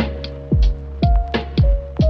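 Background electronic music with a beat: kick-drum strokes that drop in pitch, short crisp hi-hat-like hits, and held synth tones underneath.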